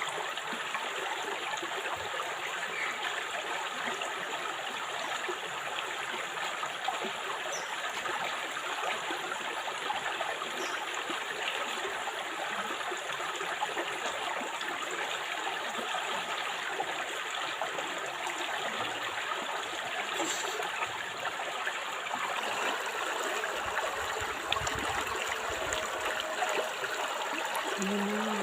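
River water flowing steadily over its bed, a continuous even wash of moving water.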